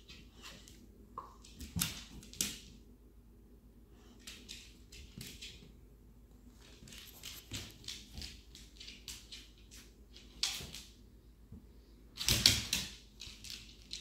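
Claws clicking and scrabbling on a hardwood floor as a dog and cat move around each other: scattered taps, a quicker run of clicks in the middle, and a louder scuffle near the end.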